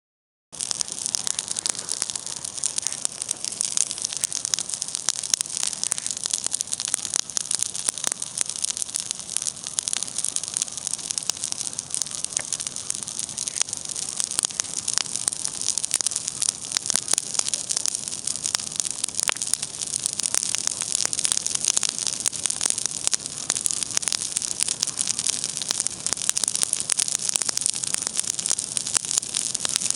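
Campfire burning: a dense run of sharp crackles and pops over a steady hiss.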